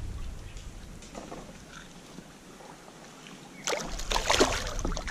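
Soft water and handling noise, then about three and a half seconds in a burst of irregular splashing and rattling as a small piraputanga hanging from a lip gripper is swung out over the water.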